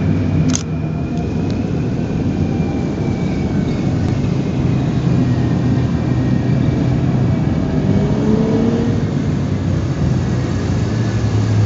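Military tracked articulated vehicle (bandvagn) driving past, its engine running in a steady low hum. There is a brief click about half a second in, and the hum grows stronger near the end.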